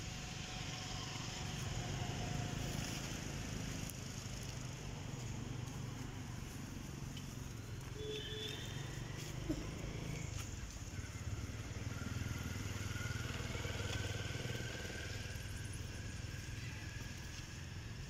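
An engine running steadily in the background, a low even rumble, with a few faint, brief high calls over it.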